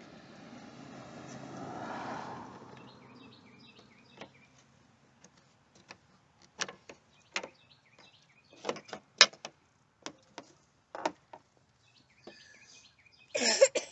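A vehicle passes, swelling and fading over the first three seconds, with birds chirping. Then comes a scattered series of sharp clicks and knocks from tail-light parts being handled, with a louder cluster of knocks near the end.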